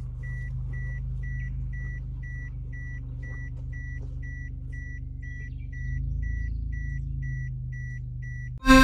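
Vehicle warning beeper sounding about twice a second, steady and even, over a car engine running low underneath that grows louder about six seconds in. Music cuts in right at the end.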